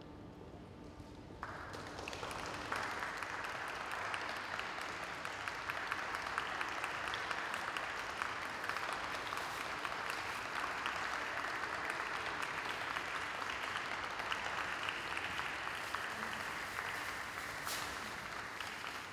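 Audience applauding: the clapping starts about a second and a half in, fills out a moment later, holds steady and dies away at the end.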